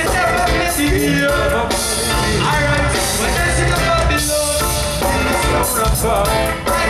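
Live reggae band playing through a loud PA: a lead vocalist sings into a microphone over drums, guitar, bass and keyboards, with a steady beat.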